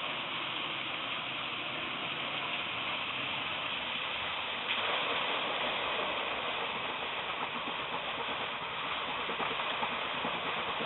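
Steady rush of water pouring onto a flour mill's water wheel, a hiss that gets a little louder just before halfway through.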